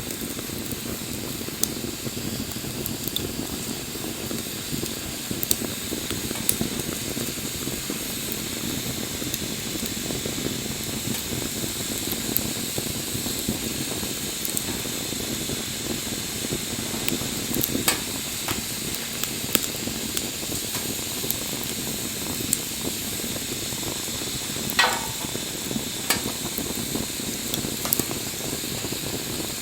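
Wood campfire burning with a steady hiss and scattered sharp crackles and pops. Near the end, one brief falling whistle comes from steam escaping the burning wood.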